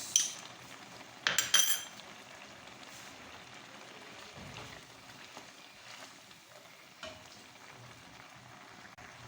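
A metal spoon clinks against a karahi twice in the first two seconds, ringing briefly, while garlic-ginger paste goes into the pot. A faint, steady sizzle of the chicken and tomatoes cooking over the heat follows.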